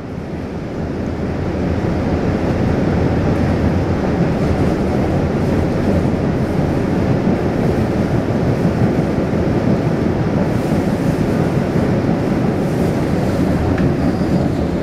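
A 2007 Siemens MBTA Blue Line subway car running along the track, heard from inside the car: a steady rolling noise of wheels on rail and the running gear. It grows louder over the first couple of seconds, then holds steady.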